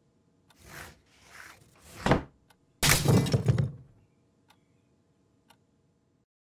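Cartoon sound effects: a few muffled noises that grow louder, a sharp thump about two seconds in, then a loud crash with clattering lasting about a second, followed by a couple of faint ticks.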